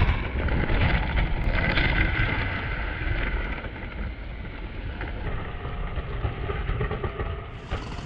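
K'nex model roller coaster train rolling along its plastic track, a continuous rumble that slowly fades.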